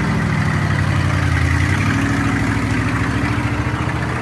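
Old Ford truck's engine idling steadily.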